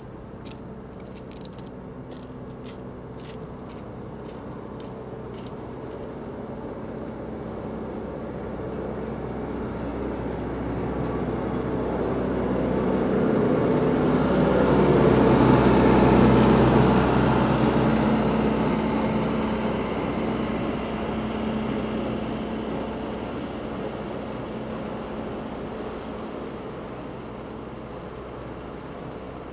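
Road-rail vehicle, a rail-mounted excavator towing a flatbed trailer, running along the railway track on its diesel engine. It grows steadily louder as it approaches, is loudest about halfway through as it passes close by, then fades as it moves away.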